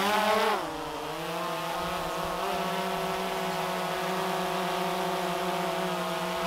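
DJI Phantom 3 Professional quadcopter's motors and propellers at take-off: loudest and highest in pitch in the first half second, the pitch dropping as it lifts, then a steady buzzing hum as it hovers.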